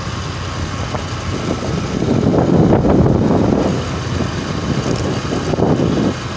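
Vehicle engine running with road and wind noise while moving along the road, swelling loudest about two to three and a half seconds in.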